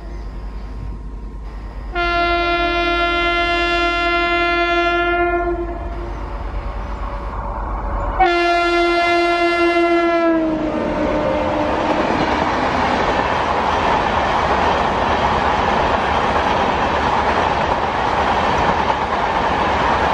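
WAP7 electric locomotive's horn: the tail of one blast right at the start, then two long blasts, the second dropping in pitch at its end as the locomotive goes past. The locomotive and its LHB passenger coaches then pass at speed with a steady rushing rumble and wheel clatter.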